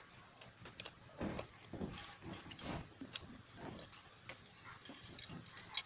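Handling noise from the Nemo Diver Drill's plastic housing being turned and set against the table, with irregular small clicks and scrapes.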